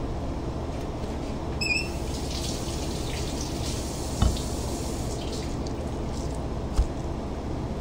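Steady low hum of kitchen ventilation, with water running at a sink for a couple of seconds, a brief high chirp, and two knocks on the plastic cutting board as the knife and fish fillet are handled.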